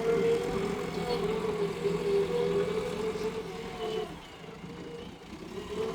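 JCB excavator's diesel engine running with a steady droning note, which drops away about four seconds in.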